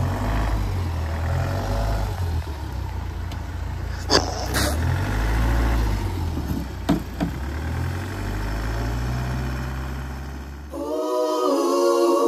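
Mahindra Thar's diesel engine running low and uneven as the jeep crawls over a sandy slope, with a few sharp knocks around four and seven seconds in. Background music comes in near the end.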